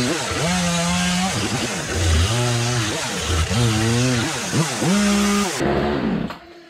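Two-stroke gas chainsaw cutting through a wooden block in a vise; its engine pitch sags under load and picks back up several times as the chain bites and clears. The saw runs strong after its low-speed carburettor screw was tweaked, and the sound falls away sharply near the end.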